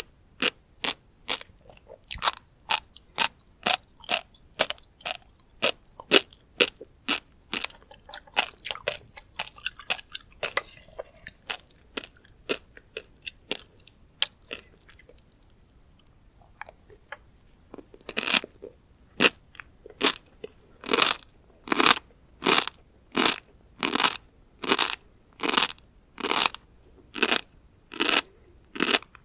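Close-miked chewing of tobiko (flying fish roe), the tiny eggs crunching and popping in a steady rhythm of about two to three chews a second. Past the middle there is a brief quieter lull, then the chews come back louder and evenly spaced.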